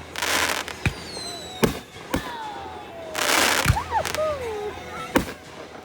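Fireworks going off: about six sharp bangs of bursting shells spread over the few seconds, with two short bursts of hiss and falling whistles.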